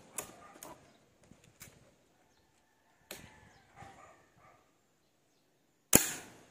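A PCP air rifle fires a single shot near the end: one sharp crack that dies away quickly, followed about half a second later by a fainter click. A few faint handling clicks come before it as the trigger is squeezed.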